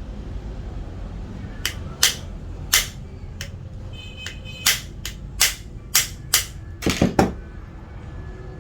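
About a dozen sharp clicks and taps at irregular intervals, typical of tools and small metal parts being handled during bench repair of an angle grinder, over a steady low hum. A brief faint ringing is heard near the middle.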